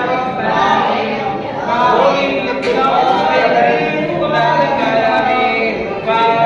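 A group of voices singing together.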